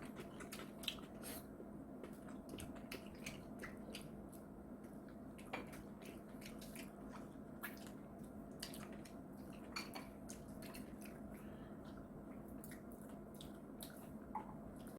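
Fried chicken being eaten: faint chewing with many scattered small clicks, over a steady low hum.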